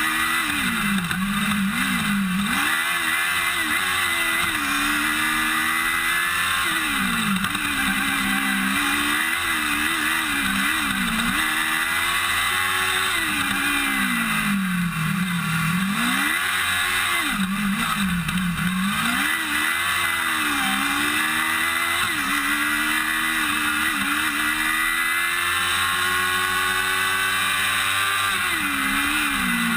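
Formula SAE race car engine heard close up from the car's roll bar, revving up and down over and over as the car accelerates out of corners and brakes into them. The pitch rises and falls every few seconds.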